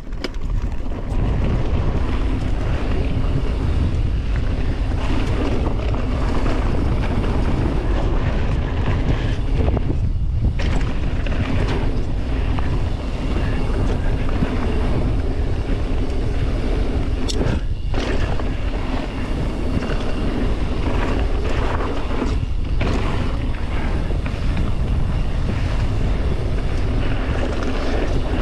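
Mountain bike descending a gravel-and-dirt singletrack: wind rushing over the action camera's microphone, mixed with the tyres rolling over gravel and the bike rattling, building up about a second in as the bike gets going. The noise dips briefly twice, near the middle.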